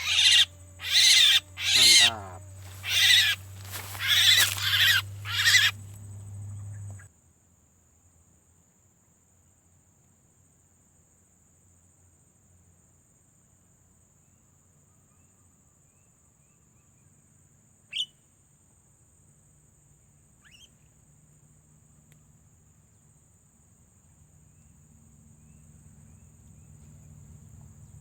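Jalak (myna/starling) giving a series of about six loud, harsh calls in the first six seconds, then near silence with a couple of faint chirps later on.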